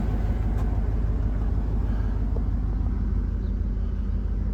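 1999 GMT400 Suburban's engine idling steadily with a low rumble.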